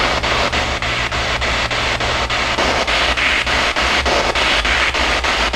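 Spirit box sweeping through radio frequencies: loud, continuous static chopped by regular clicks about five times a second as it jumps from station to station.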